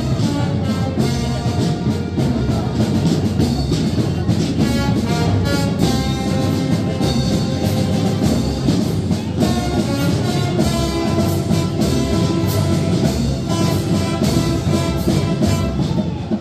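Brass band with drums playing.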